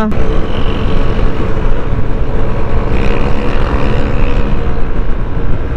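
Yamaha Aerox 155 scooter's single-cylinder engine running at road speed under heavy wind buffeting on the microphone, its faint engine note rising slightly near the middle.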